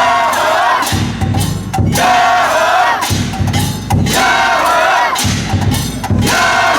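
A crew of men chanting in unison, in drawn-out shouts about every two seconds. Heavy drum beats and sharp wooden or metal clacks of the festival accompaniment fall between the shouts, as the dragon boat is spun in practice.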